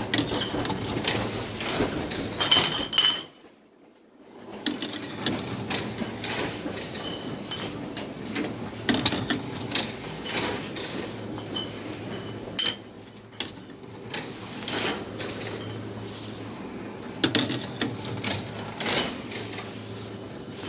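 Reverse vending machine taking in returned glass beer bottles: its motor hums steadily while the bottles knock and clink against the intake and against each other. A few sharper glass clinks ring out, the loudest about 12 seconds in, with a brief lull around 3 to 4 seconds in.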